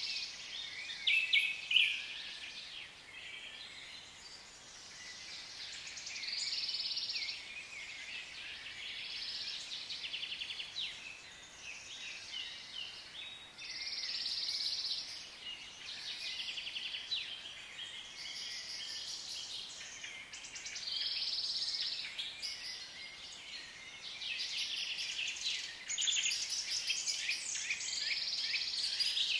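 Forest ambience of many birds chirping and calling, overlapping chirps and short dense trills that swell and fade in waves every few seconds.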